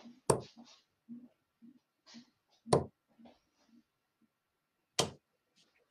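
Three steel-tip darts thudding one by one into a Target Pro Tour bristle dartboard, about two and a half seconds apart.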